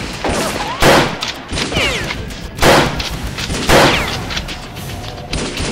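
Gunshot sound effects: three loud shots about a second or two apart, with weaker cracks between and whining pitch glides after them.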